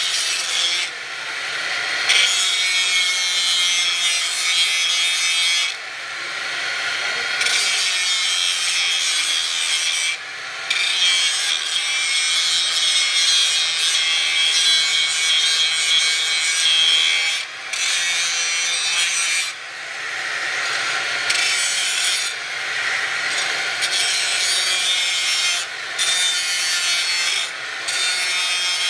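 Power grinder grinding steel: a steady, gritty whine that falls off briefly several times as the wheel is lifted and set back on the metal.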